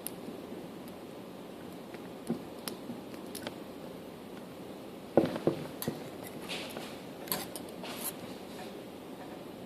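Lock pick and tension wrench working inside a CISA brass padlock: scattered faint clicks and scrapes over a steady hiss, with a cluster of louder sharp clicks and scratches about five seconds in and more a couple of seconds later.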